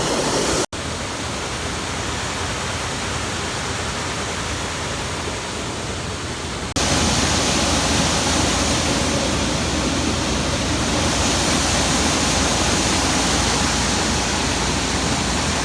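Grain augers and a rotary screener running with soybeans pouring through them: a steady rushing noise that breaks off for an instant about a second in and jumps louder around seven seconds in.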